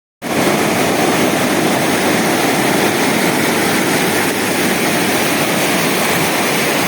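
River rapids: fast white water rushing past, a loud, steady rush of water that cuts in suddenly just after the start.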